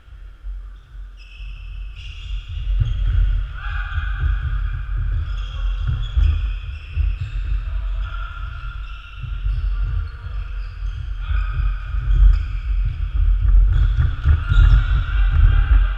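Players' feet thudding and running on a wooden sports-hall floor, an uneven low rumble that grows louder about two seconds in. High held tones that change pitch every second or so sit over it.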